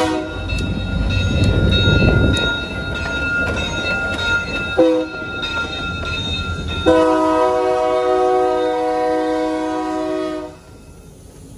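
DGNO diesel locomotives led by an EMD SD40-2 pass close by with a heavy low engine rumble, sounding the air horn for a grade crossing. There is a blast ending just at the start, a short blast about five seconds in, and a long blast of about three and a half seconds that cuts off abruptly near the end.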